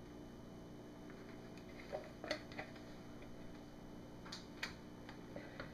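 A few faint, sharp clicks and taps, in small groups about two seconds in and again near the end, as plastic soap-making utensils and a measuring pitcher knock against a wooden soap mold, over a steady faint hum.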